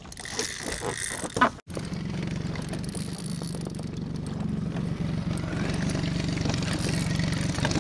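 A few knocks and rustles, then from about two seconds in a boat's outboard motor runs steadily at low speed.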